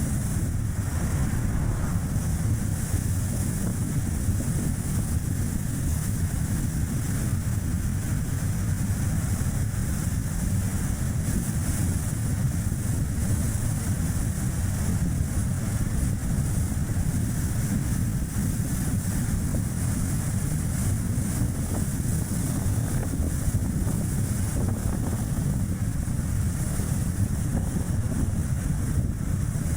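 Steady low rumble of strong wind buffeting the microphone, mixed with tyre and road noise from a Chevrolet Spark city car driving along.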